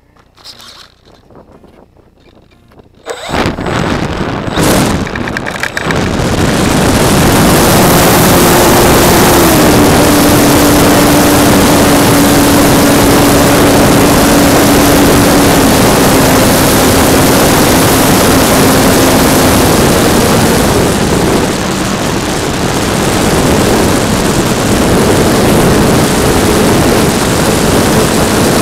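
Radio-controlled E-flite PT-17 Stearman model biplane heard from its own onboard camera. About three seconds in, the electric motor and propeller spin up for takeoff. The rest is loud, steady propeller wash and wind rushing over the microphone, with a propeller hum that steps down in pitch a few times.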